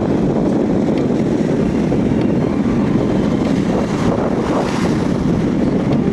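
Strong, steady wind blowing across the microphone.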